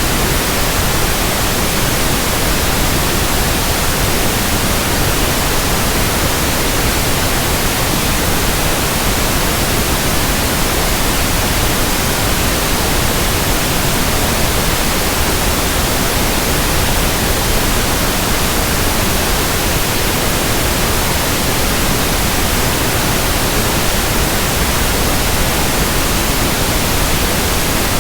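Steady, unchanging pink noise: an even hiss spread over the whole range, played as a test signal for tinnitus sound matching.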